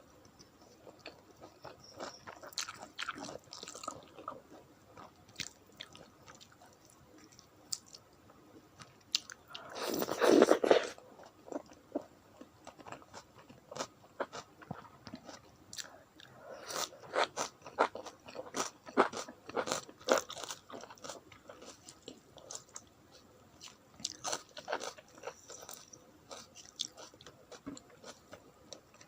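Close-up eating sounds: a person chewing and biting food, with wet mouth clicks and crunches coming in clusters. About ten seconds in there is one louder, longer crunch.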